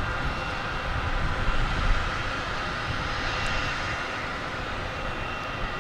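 Jet airliner engines running at a distance: a steady rumble with a faint high whine.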